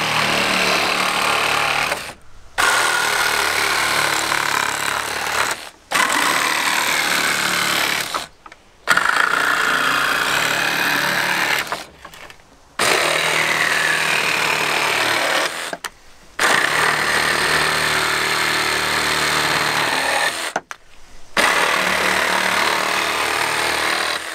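North American Concept 20 V cordless jigsaw sawing through wooden pallet boards, running in stretches of a few seconds and stopping briefly six times between them.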